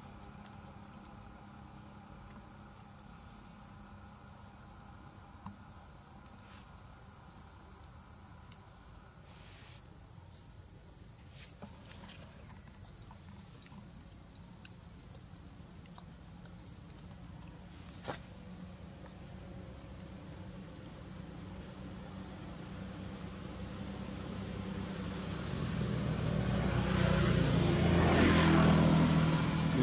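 Steady high-pitched insect chorus droning in two even tones. Near the end a motor vehicle's engine grows louder as it approaches, becoming the loudest sound.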